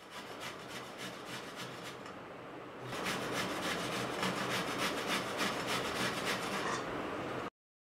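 Fresh coconut flesh being grated on the coarse holes of a stainless steel box grater: rhythmic scraping strokes, a few a second, growing louder about three seconds in and cut off abruptly shortly before the end.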